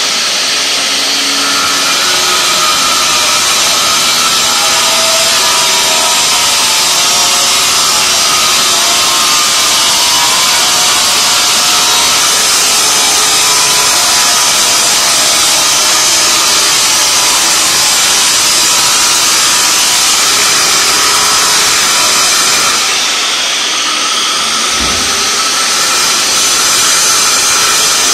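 Handheld angle grinder with a cutting disc running loud and steady as it cuts through the edge of a marble floor slab, with a high grinding hiss. It eases off briefly near the end, with a dull knock, and then bites in again.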